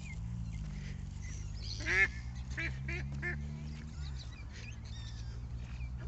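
Waterfowl honking: one loud honk about two seconds in, followed by three short honks, over a low steady hum that fades out about four seconds in.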